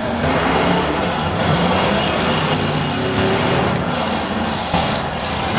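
Several demolition derby cars' engines running and revving as the cars push against one another, with one sudden bang near the end.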